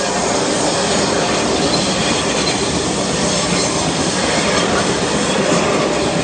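A train passing through a level crossing at close range: a steady, loud rush of wheels running on the rails.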